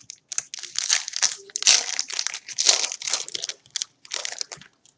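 Foil wrapper of a Panini Absolute football card pack crinkling in a quick run of rustling bursts as it is torn open and handled; the crinkling thins out near the end.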